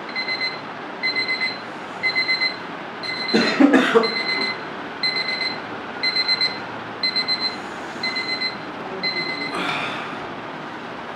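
Electronic wake-up alarm beeping: a high tone in quick groups of about four beeps, repeating about once a second. Bedding rustles twice, loudest about a third of the way in, as the sleeper stirs.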